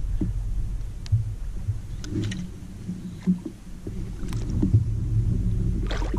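Low rumbling of wind and water against a plastic kayak hull, with a few light knocks and clicks from rod and reel handling.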